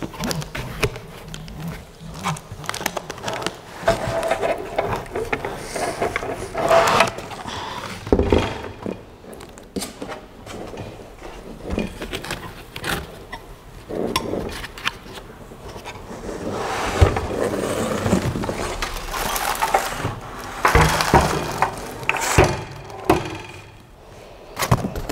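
Cardboard carton and packing being handled while a heavy machine frame is worked out of a tightly packed box: irregular rustling and scraping with scattered knocks and clunks.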